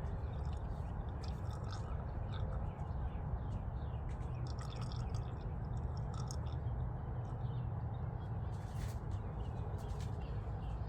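Motor oil glugging and trickling as it is poured from a bottle into the engine's oil filler, over a steady low background rumble.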